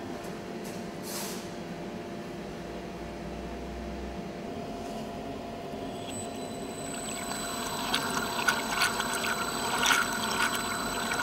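Steady low machine hum. About six seconds in, a high whine starts and water begins churning and splashing, growing louder, as the bottom-entering rotor-stator homogenizer of a VMI Trilab 50-liter vacuum mixer spins in a water charge.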